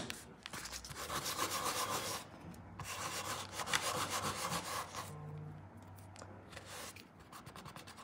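Stamping polish being scraped across a metal nail-stamping plate with a scraper: two long scraping passes, the second ending about five seconds in, followed by fainter light clicks.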